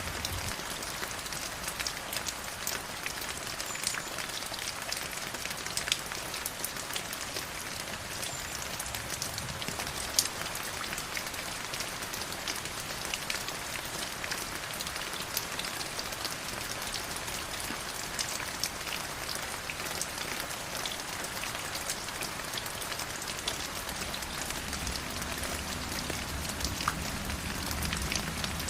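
Forest river water flowing steadily, an even rushing hiss dotted with many small splashes and drips; a deeper low rush rises near the end.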